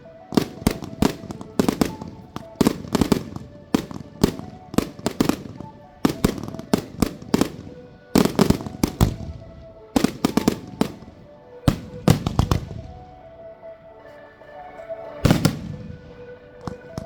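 Fireworks display: rapid volleys of loud bangs and crackling shell bursts. The bangs thin out for a couple of seconds about three-quarters of the way through, then a big burst breaks in.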